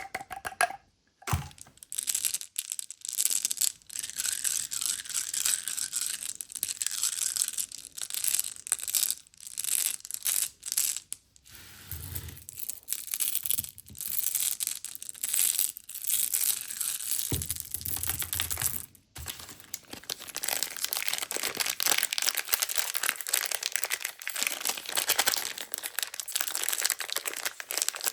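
Plastic candy packaging crinkling and tearing close to the microphone, with many small clicks and rattles of hard candies being handled. The crackling is dense and continuous, growing busier in the last third.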